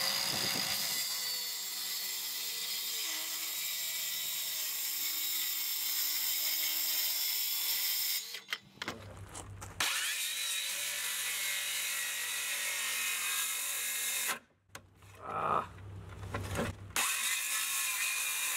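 DeWalt circular saw running and cutting shallow kerfs along a strip of treated lumber to form a lap joint. The motor stops briefly about eight seconds in and again for a couple of seconds later on, then starts up and cuts again.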